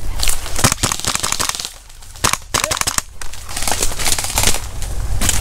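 Dry brush, twigs and leaf litter crackling and snapping irregularly as a player pushes through undergrowth and drops prone onto it. There is a brief lull about two seconds in.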